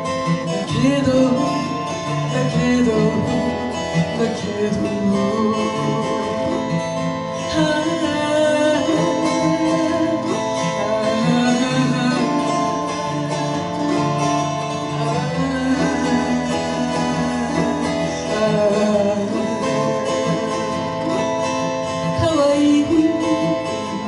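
Live acoustic music: a steel-string acoustic guitar plays chords under a woman's singing voice, with the sung word "dakedo" about five seconds in.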